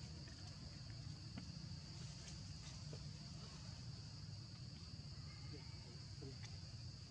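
Faint insect chorus, a steady high-pitched drone, over a low steady rumble.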